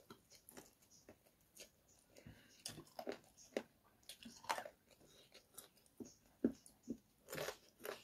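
Close-miked eating sounds: chewing of a mouthful of rice and chicken curry, with fingers mixing rice and curry on the plate, heard as a run of short, irregular clicks and crackles. The strongest come near the end.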